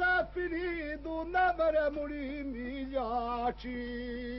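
Unaccompanied male singing with ornamented, wavering notes, settling on a long held note about three and a half seconds in.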